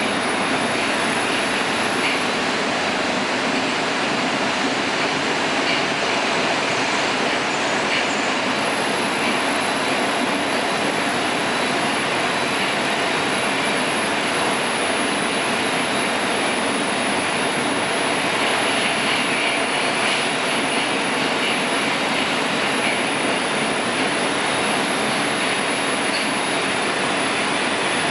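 Inside an 81-760/761 'Oka' metro car running at speed between stations: a steady, even rushing noise of the wheels on the rails and the car's motion, with a faint thin high whine above it.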